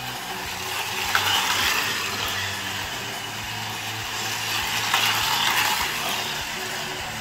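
Hot Wheels electric slot cars whirring around a plastic slot track, their small motors buzzing and rattling in the slots. The sound swells about a second in and again about five seconds in as the cars pass close.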